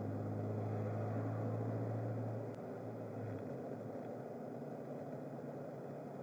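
A car driving, with engine and road noise as heard inside the cabin. A strong low engine hum fades about three seconds in and the noise continues a little quieter.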